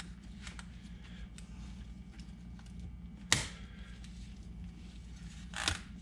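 Pliers-type piston ring compressor being worked around a piston in a cylinder barrel: faint metal clicks, with one sharp click about three seconds in and a short clatter near the end.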